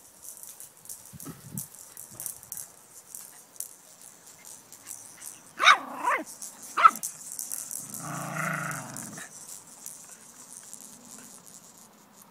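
Jack Russell terrier barking: two short, sharp yaps about six seconds in, followed about two seconds later by a longer, rougher vocal sound lasting about a second.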